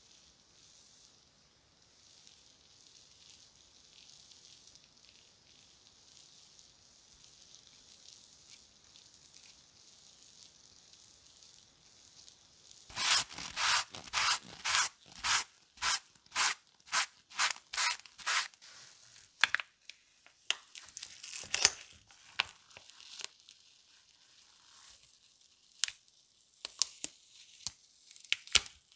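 A tissue rubbed in quick strokes, about two a second, over the foil-stenciled face of a steel hammer head, wiping off the etching residue. Sharp crinkling follows near the end as the adhesive plastic stencil foil is peeled off the metal.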